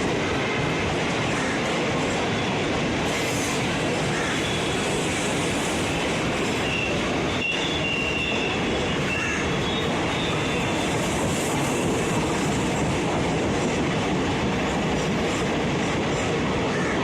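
Express passenger train rolling slowly through a station, its wheels running steadily over the rails. Faint high wheel squeals come in briefly about halfway through.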